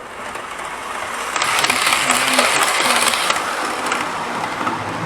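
OO gauge model HST train running on the layout's track: a steady rushing rattle of wheels and motor that grows louder about a second and a half in.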